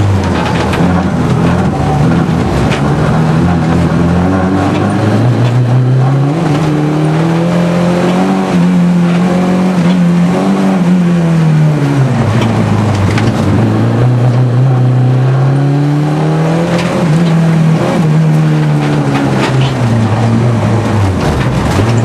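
Opel Corsa A's engine heard from inside the cabin under hard driving. It revs up and drops back in long sweeps every few seconds as the driver accelerates, lifts and shifts between cones on a slalom course.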